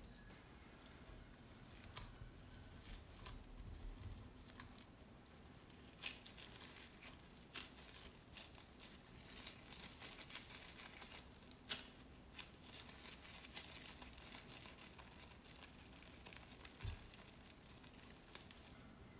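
Faint crinkling and rustling of disposable gloves as hands press and roll a chocolate-biscuit mixture into balls, with a few light clicks.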